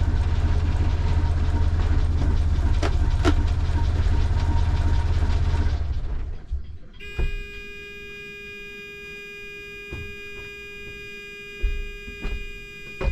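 Volvo Penta boat engine running at a cold idle, shut down about six seconds in. About a second later the new low-oil-pressure alarm buzzer starts a steady, harsh buzz and holds. It sounds because the oil pressure has dropped with the engine stopped while the ignition is still on.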